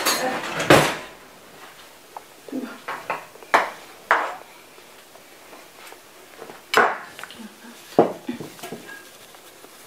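Kitchen dishes and utensils clattering for about the first second, then four or five separate clinks and knocks spread out, with quiet between.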